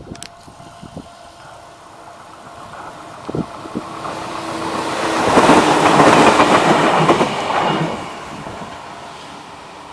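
Enshu Railway electric train passing over a level crossing, with the running noise and clatter of its wheels on the rails. The noise swells for a few seconds to its loudest about halfway through, then fades as the train moves away.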